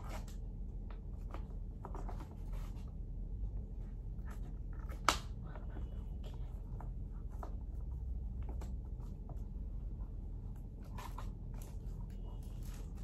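Scattered light rustles and small clicks of a plastic cat litter packet being handled while a cat noses at it, with one sharp click about five seconds in, over a low steady hum.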